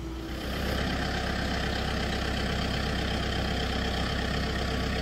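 Kubota farm tractor's diesel engine running steadily at close range. It sets in about half a second in.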